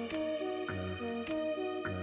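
Background music: a gentle repeating melody of single held notes over a low bass note, with a light tick about twice a second.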